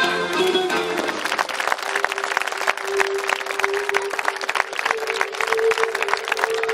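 Music with long held notes, with audience applause, a dense patter of clapping, coming in about a second in as the singing stops.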